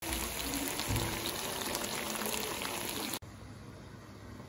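Chicken drumsticks sizzling and bubbling in oil in a frying pan: a dense crackling hiss that cuts off suddenly about three seconds in, leaving a much quieter background.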